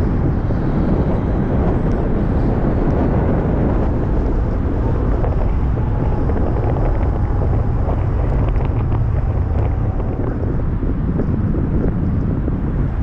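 Steady rush of a moving car and its road noise, with wind buffeting the microphone of a camera mounted outside the car.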